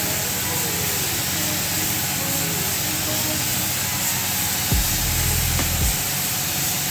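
Compressed-air paint spray gun hissing steadily as it sprays car body paint, with faint music underneath and a low rumble about five seconds in.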